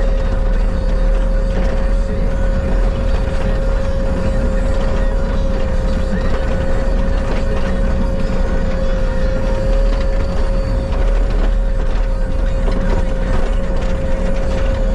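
Bobcat skid steer running steadily under work, a low engine rumble with a steady whine held at one pitch over it.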